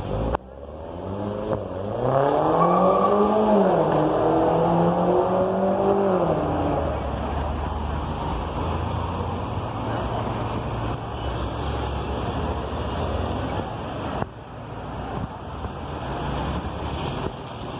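Porsche engine revving: its note climbs over a couple of seconds, dips and holds, then falls away about six to seven seconds in. It then settles into a steady low rumble.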